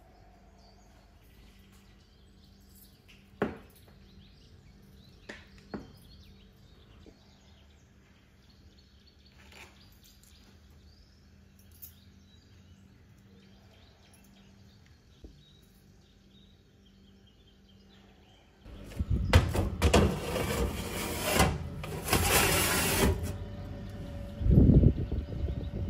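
A few faint taps, then about two-thirds of the way through a loud stretch of metal scraping and clattering as a baking tray is slid onto an oven rack, a heavy thump near the end, and a steady oven fan hum starting.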